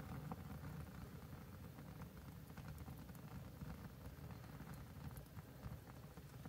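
Faint crackle and hiss of flakes of cured nitrocellulose lacquer burning out in small flames on a charred log, with scattered light ticks over a steady low rumble.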